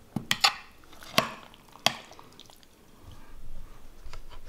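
Several sharp clicks and taps in the first two seconds, then low rumbling handling noise in the last second or so.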